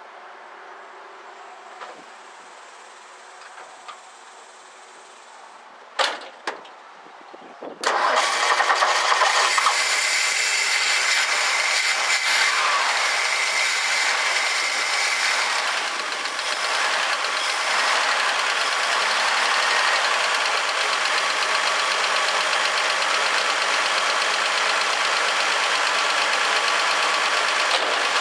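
1964 Ford F100 pickup engine, carburetor freshly rebuilt and primed with gas poured into it: after a few faint ticks and two sharp clicks, it fires about eight seconds in and keeps running steadily.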